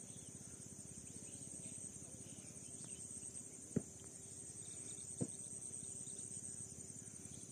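Insects chirring steadily in a high, unbroken band, with two short sharp knocks, the first a little under four seconds in and the second about a second and a half later.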